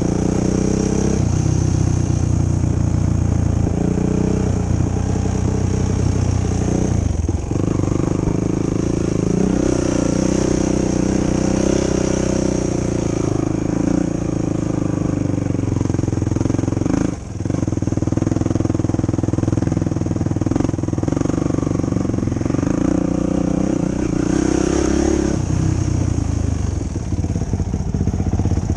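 Yamaha YFZ450 quad's single-cylinder four-stroke engine running under changing throttle while trail riding, its pitch rising and falling. The sound drops briefly about seven and again about seventeen seconds in.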